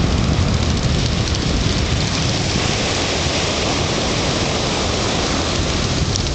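Ocean surf breaking on a beach: a steady hiss of waves with a low rumble underneath.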